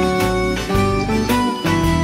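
Instrumental break of a song: guitar-led music with a steady beat, no singing.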